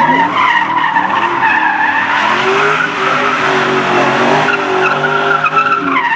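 Ford Mustang doing donuts: rear tires spinning and squealing in a wavering high tone over the engine held at high revs.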